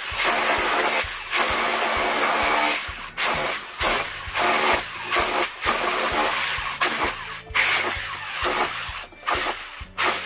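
Electric demolition hammer with a chisel bit chipping into brick to cut a chase for an electrical conduit. It runs in bursts, stopping and restarting many times.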